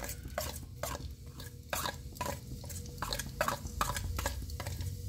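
Cumin seeds crackling in hot oil in a kadhai: sharp, irregular pops a few times a second over a low steady hum. This is the stage of tempering where the seeds begin to splutter before the onion goes in.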